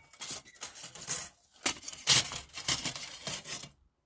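Thin hinged steel plates of a Lixada folding wood stove clacking and scraping against each other as they are folded together by hand, with a run of sharp metal clicks.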